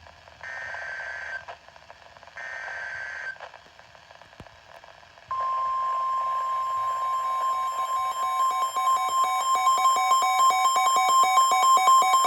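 NOAA Weather Radio EAS alert signal. First come two short, about one-second bursts of the screechy SAME digital header. About five seconds in, the steady 1050 Hz warning alarm tone starts, and a weather radio's own rapid pulsing alert beeps join it, getting louder toward the end.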